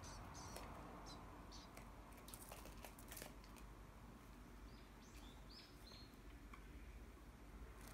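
Faint, short, high chirps of Japanese tit fledglings, a handful of them about five seconds in, after a few light clicks.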